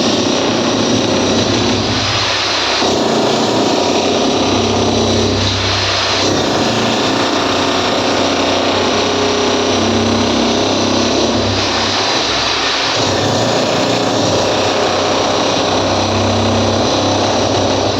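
A power tool running continuously and loudly, its sound shifting every few seconds as the work goes on.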